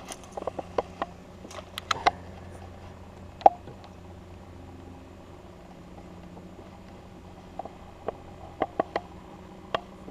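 Scattered sharp clicks and light knocks from a spinning rod and reel being cast and then reeled in from a kayak, over a faint steady low hum. The clicks bunch together in the first two seconds and again near the end, with one louder click in between.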